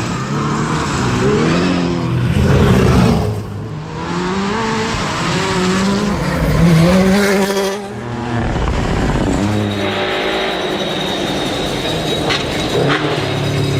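Rally car engine revving hard, its pitch climbing and then dropping abruptly as it shifts or lifts, twice over. Two sharp knocks come near the end.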